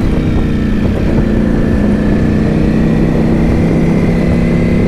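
Sport motorcycle engine running steadily at highway cruising speed in fourth gear, with heavy wind noise on the microphone.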